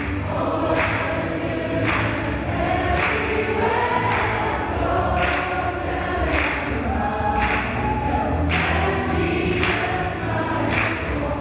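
A gospel group of women's voices singing in close harmony, with a sharp regular beat about once a second.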